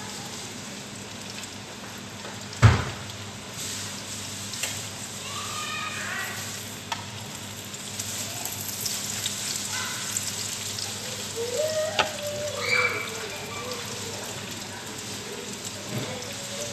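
Food sizzling steadily in oil in a frying pan, with a spatula clinking against the pan now and then. A single sharp knock about three seconds in is the loudest sound.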